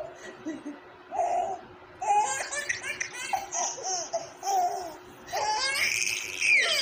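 Baby laughing in bouts of short giggles, with brief pauses between them and a louder, higher-pitched stretch of laughter near the end.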